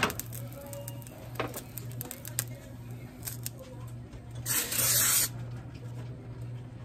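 Aerosol cooking oil spray hissing into an empty nonstick frying pan in one burst of just under a second, about four and a half seconds in.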